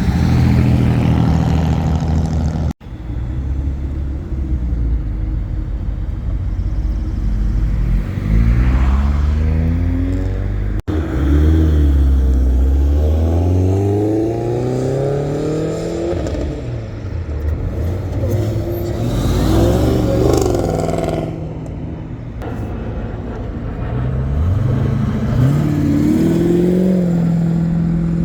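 Car engines revving and accelerating away, one after another, with engine pitch rising and falling repeatedly. The sound is in short clips joined by abrupt cuts.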